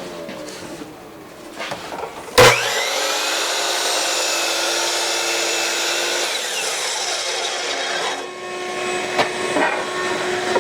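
Electric power saw switched on with a click about two seconds in, spinning up to speed and then running steadily while cutting through a pine board, with a brief dip in sound about eight seconds in.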